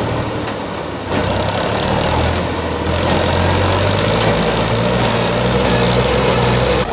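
Massey Ferguson 260 tractor's diesel engine working hard; it rises about a second in and then holds a steady, loud note. This is the load of a tractor stuck in soft soil with a trailer hitched, straining to pull free.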